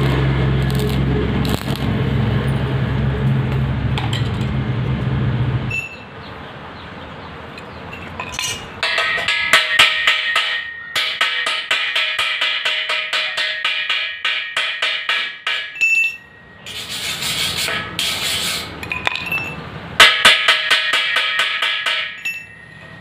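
Arc (stick) welding on square iron pipe: the electrode crackles and sputters over a low hum for about six seconds, then stops suddenly. Then a chipping hammer knocks slag off the fresh weld bead in runs of rapid, sharp metallic taps.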